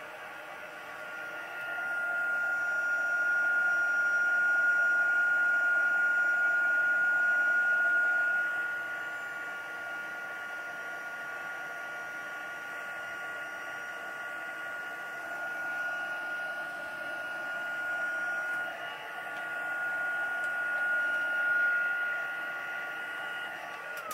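Handheld craft heat gun running steadily, a high whine over a rush of air, drying water-dampened journal paper. It is louder for a few seconds near the start and cuts off suddenly at the very end.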